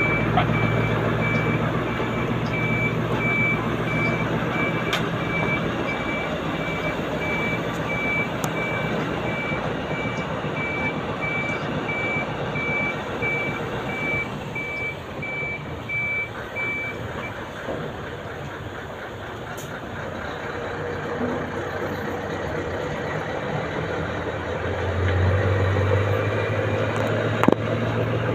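Articulated lorry reversing, its reversing alarm sounding a steady run of single-tone beeps over the diesel engine's low running sound. The beeping stops about two-thirds of the way through, and the engine grows louder near the end.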